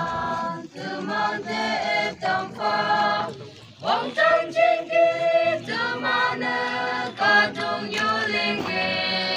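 A choir of voices singing a song together, long held notes in phrases with short breaks between them.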